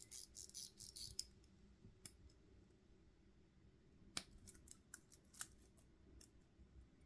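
Faint metallic clicks from a stainless steel watch and its link bracelet being handled in the fingers: a quick run of clicks in the first second, then single clicks every second or so.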